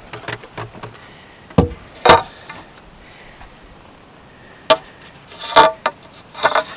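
Sections of a push pole being handled in a bass boat: a handful of sharp knocks and clatters against the boat, the loudest about two seconds in and again after five seconds, some with a short ring.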